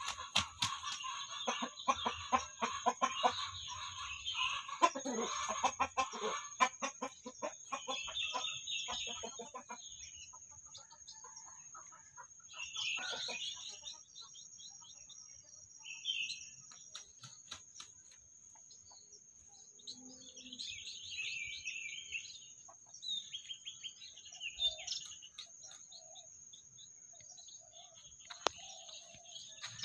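Chickens: a burst of loud squawking with rapid wing-beats for the first six seconds or so, then scattered clucks and short calls from the flock.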